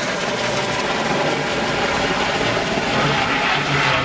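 Bell 47 G-3B-1 'Soloy' helicopter in flight, its Allison turbine conversion and two-blade rotor making a steady, loud noise.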